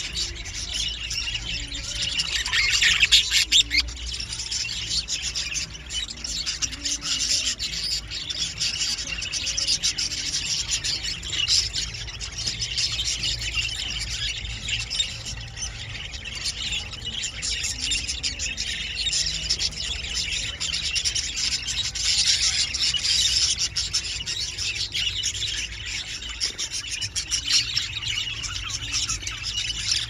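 Budgerigars chattering and chirping without pause, a dense stream of quick high chirps.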